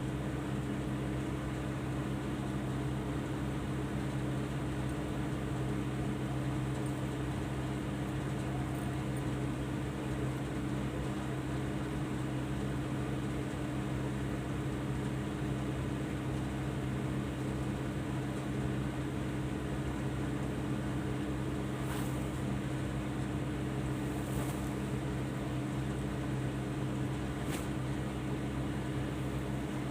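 Steady low mechanical hum, even throughout, with a few faint ticks in the second half.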